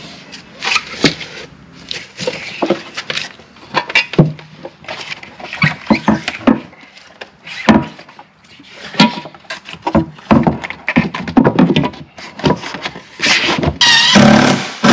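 Background music with an irregular beat. Near the end, a cordless drill runs to drive a screw, its whine rising and falling.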